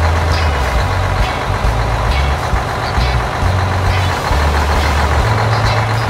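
Truck engine sound effect: a steady noise of a truck engine running and driving along the road.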